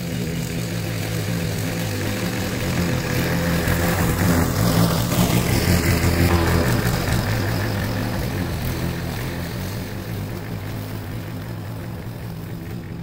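Briggs & Stratton single-cylinder engine on a walk-behind lawn mower running steadily while cutting grass; it grows louder in the middle and then fades.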